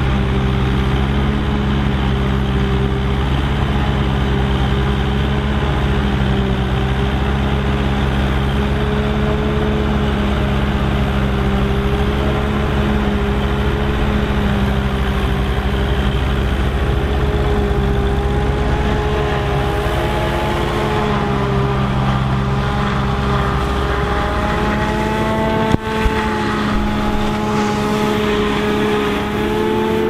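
Tractor engines running steadily under load as a Ford 5000 drives a one-row Pöttinger forage harvester chopping corn, with a BM Volvo tractor running alongside pulling the silage trailer. In the second half higher whining tones come in over the engines, and near the end there is a single sharp knock.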